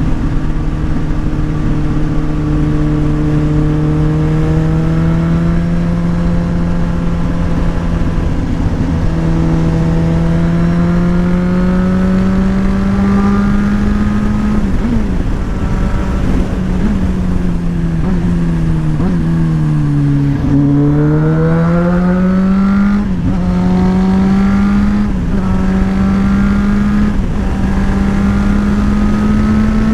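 Motorcycle engine running under way, with its note rising slowly as the bike speeds up. About twenty seconds in it drops off as the bike slows, then climbs again through three quick gear shifts, with steady wind rush on the microphone.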